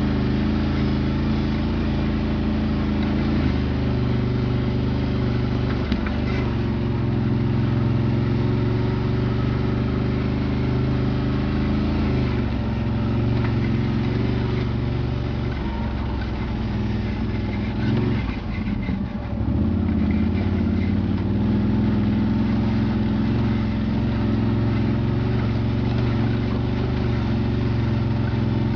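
Quad (ATV) engine running steadily while the quad is ridden over a rough dirt trail, with a brief drop in revs about two-thirds of the way through.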